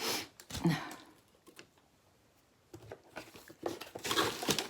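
Rustling and crinkling of packaging being handled, in two spells: a short one at the start and a longer one from about three seconds in.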